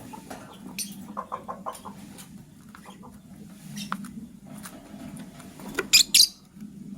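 Lovebirds chirping and chattering, with short clicks and scratches among the calls; a quick run of chirps about a second in, and two loud, sharp shrieks in quick succession near the end.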